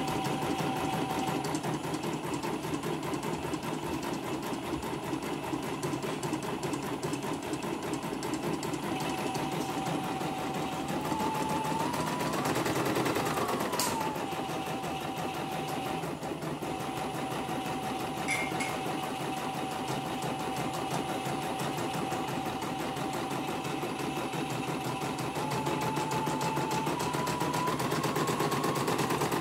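CNY computerized embroidery machine stitching a test design, needle running in a fast, even rhythm. Its motor whine changes pitch with stitch speed, climbing to a peak about halfway and dropping back, then stepping up again near the end, with a single sharp click just after the peak. This is the machine running normally again after repair of its self-restarting and messy stitching, with its thread sensor working again.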